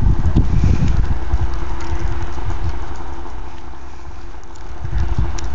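Two Arctic Cat M8 snowmobiles' two-stroke engines running with a steady drone. Wind buffets the microphone in low rumbling gusts, loudest at the start and again near the end.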